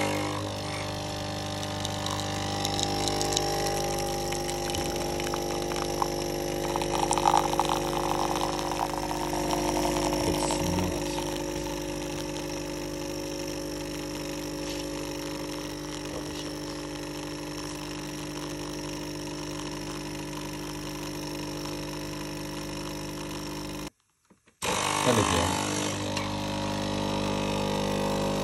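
Breville Nespresso capsule coffee machine brewing, its pump buzzing loudly and steadily as coffee pours into the mug. Near the end the sound cuts out for a moment and starts again as a second pod brews.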